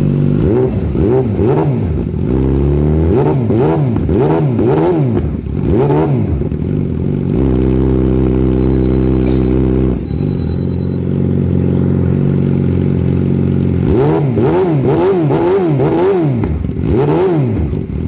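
2014 Yamaha R6's inline-four engine, through an aftermarket M4 slip-on muffler, revved in a run of quick throttle blips, idling steadily for several seconds in the middle, then blipped again near the end.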